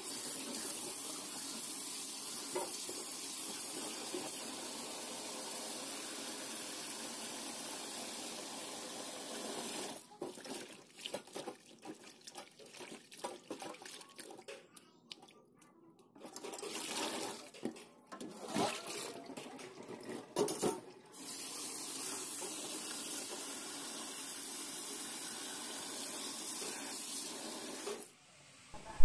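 Kitchen tap running steadily onto basil leaves in a wire mesh strainer in a stainless steel sink. About ten seconds in the steady flow gives way to uneven splashing as a hand rubs and swishes the wet leaves. The tap runs steadily again from about 21 seconds and cuts off just before the end.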